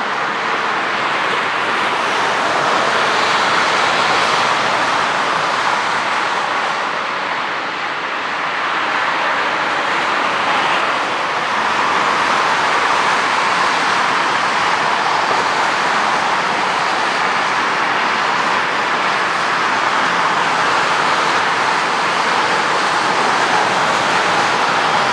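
The CFM56 jet engines of a Boeing 737-800 rolling along the runway: a steady rushing noise, even and without breaks.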